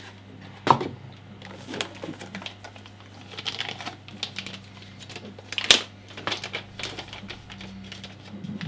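Unboxing handling noise: a thin plastic bag crinkling and rustling as it is picked up and opened, with irregular small clicks and taps. A sharp tap stands out a little before six seconds in.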